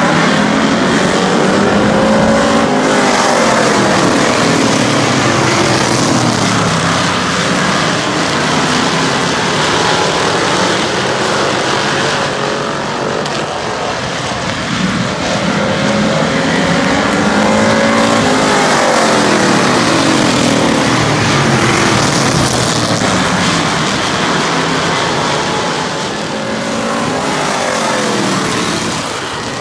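A pack of circle-track stock cars racing around a short oval. Several engines run together, their pitch climbing and falling again and again as the cars lap the track.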